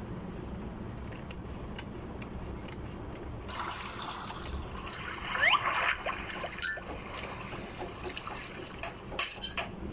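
Scissors cutting through paper: a crisp rasping that starts about a third of the way in and lasts a few seconds, over a low steady hum. A few sharp clicks near the end.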